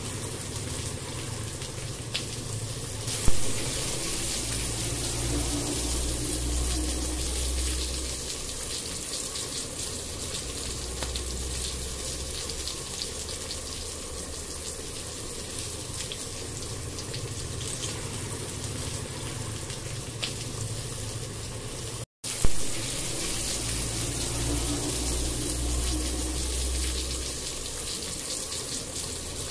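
Onion–garlic–ginger masala paste sizzling in hot oil in a nonstick kadai while a wooden spatula stirs it: a steady hiss with fine crackling. There is a sharp knock about three seconds in, and another after a momentary break about 22 seconds in.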